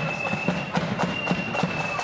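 Marching flute band playing a tune: flutes holding long high notes in unison, stepping between a few pitches, over a steady beat of side drums.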